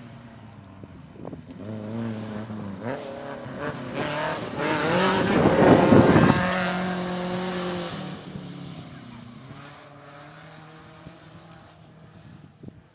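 Volkswagen rally car racing past on a gravel stage, its engine revving hard and climbing in pitch through gear changes. It is loudest as it passes close, about five to six seconds in, with tyres churning the loose gravel, then fades as it drives away.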